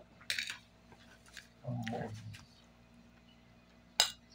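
A metal spoon scraping and clinking on a ceramic plate of rice and beans in a few sharp strokes, loudest just after the start and near the end, with a short low vocal sound around two seconds in.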